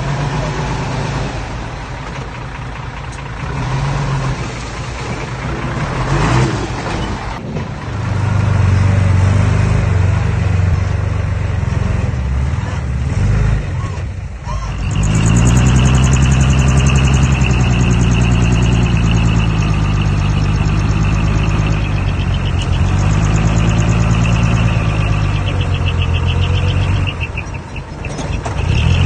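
Diesel engine of earthmoving machinery running under load, its pitch and loudness shifting, then working harder and steadier about halfway through with a high whine alongside.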